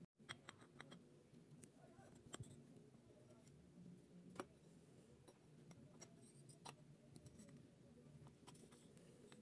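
Near silence: quiet room tone with faint, scattered clicks.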